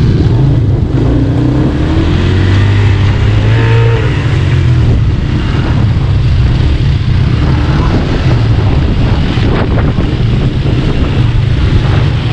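Four-wheel ATV buggy engine running steadily under way.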